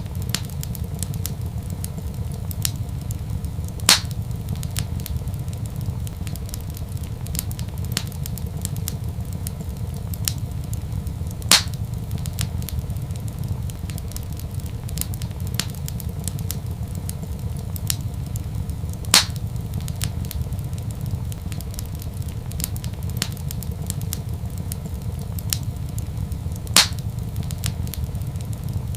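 Wood fire in a fireplace crackling over a steady low rumble, with small crackles throughout and four louder pops spaced evenly, about seven or eight seconds apart.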